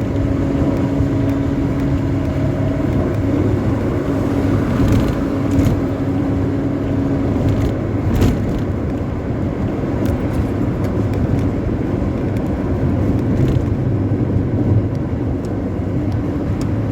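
Intercity bus engine at full throttle through a modified 'ngorok' (snoring) exhaust, giving a steady, deep, rumbling roar, with a slight rise in pitch about three to five seconds in.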